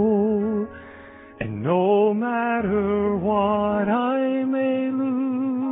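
Male solo voice singing a slow worship song with wide vibrato over piano: a long held note breaks off, a pause of under a second, then the voice slides up into a phrase and settles on another long held note.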